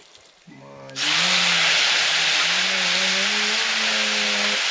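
A hot cooking pan bursts into loud, steady sizzling about a second in, as something is added to it, with a man's song carrying on over it.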